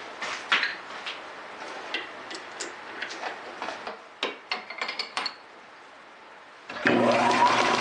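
Clinks and knocks of steel tooling being handled on a metal lathe as a drill is set up in the tailstock. About seven seconds in, the lathe starts and its motor and gears spin up with a rising whine.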